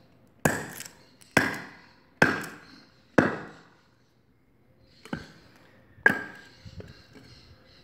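A thick-bladed bush knife (7 mm spine, 25 cm blade) chopping into a fairly hard wooden stake, splitting off chips: four sharp strikes about a second apart, a pause, then a weaker strike, a hard one and a light one. It is a chopping test of the knife's strength and edge.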